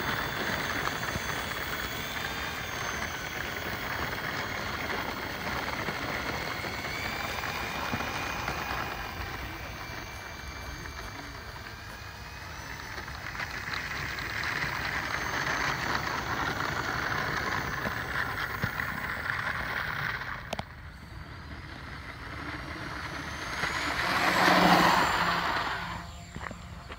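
Avios C-130 Hercules RC model's four electric motors and propellers running with a steady whine that shifts in pitch with the throttle as it taxis. Near the end the whine rises and swells to its loudest as the plane powers up for takeoff.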